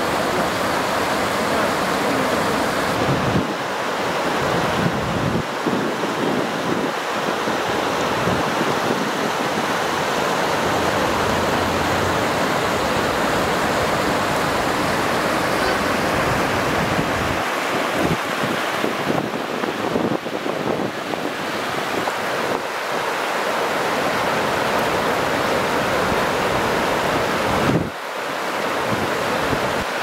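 River water rushing over a low concrete weir and churning into white water below it: a steady, even rushing noise.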